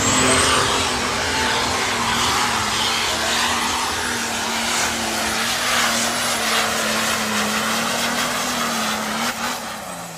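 A competition pulling tractor's engine running flat out during a pull, a loud, steady, high-revving note over a wall of noise. The note sags and the sound eases off just before the end as the run finishes.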